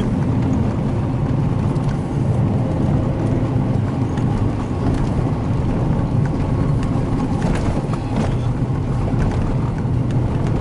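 A car driving on a snow-covered road, heard from inside the cabin: steady engine and tyre noise, with a few light knocks about halfway through.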